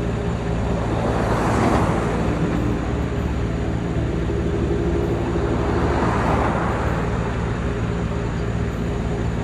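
Road traffic at an intersection: two vehicles pass, about one and a half and six seconds in, over a steady engine hum.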